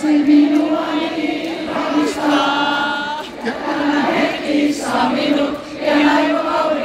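A large audience singing along together like a choir, in phrases of long held notes.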